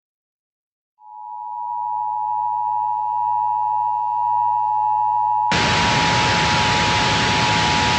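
A steady electronic tone made of two close pitches swells in about a second in. About five and a half seconds in, loud television static hiss cuts in over it.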